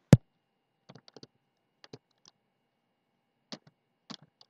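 Typing on a computer keyboard: one sharp, louder keystroke at the start, then slow, scattered key clicks in small groups of two to four, about a second apart.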